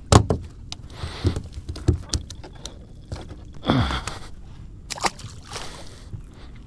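A series of irregular thumps and knocks, about five of them, with water sloshing between, from movement on a small boat.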